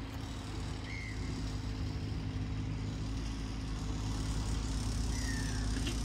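Motorised bike engine idling steadily in the background, a low continuous hum, with two short high chirps over it, one about a second in and one near the end.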